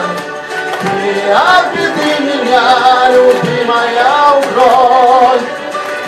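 A man singing live into a microphone over a karaoke backing track, holding long wavering notes with vibrato; the voice stops about five seconds in and the backing music carries on.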